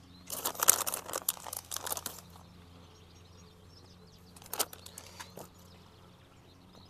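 Crinkling rustle in two bursts, a long one near the start and a shorter one in the middle, as grated cheese is picked up and sprinkled by hand onto a sandwich.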